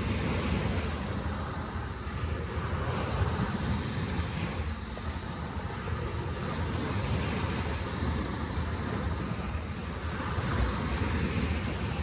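Ocean waves washing in as a steady rush, with wind rumbling on the microphone.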